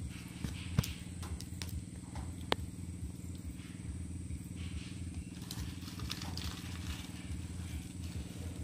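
Dry leaves rustling and crackling faintly as they are handled and set alight, with a couple of sharp clicks, over a steady low hum.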